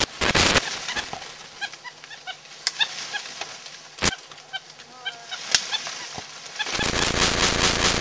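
Brown capuchin monkeys giving repeated short, honking alarm calls while mobbing a boa constrictor, with a few sharp knocks in between. From about seven seconds in there is a loud, dense crackling rush lasting a couple of seconds.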